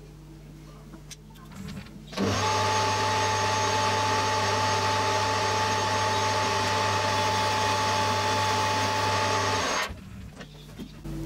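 Metal lathe running with its four-jaw chuck spinning: a steady mechanical hum with a constant whine, starting abruptly about two seconds in and cutting off abruptly near the end.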